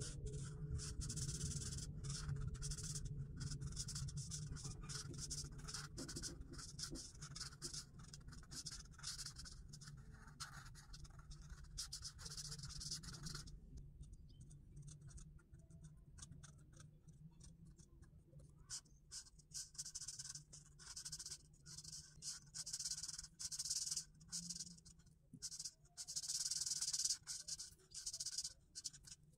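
Marker tip scratching across paper while colouring in. The strokes are continuous for about the first half, then turn into quieter short dabs and separate strokes, and become brisk, steady scribbling again near the end.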